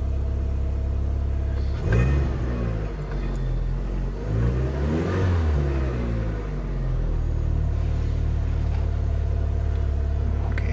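VW Golf Mk5 1.6 petrol engine idling, then revved twice with the throttle, the second time longer and up to about 2,100 rpm, before settling back to an idle of about 1,050 rpm.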